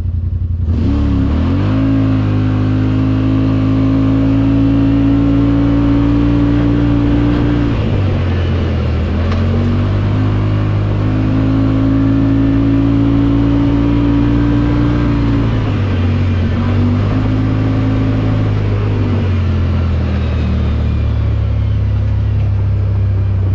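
Yamaha Wolverine X4's parallel-twin engine launching at full throttle in four-wheel drive. The CVT holds it at a steady high rev; it eases off and comes back on twice, then settles lower near the end.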